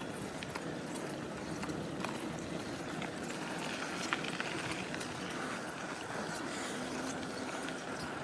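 Bicycle rolling along a path: a steady rush of tyre noise with small scattered clicks and rattles.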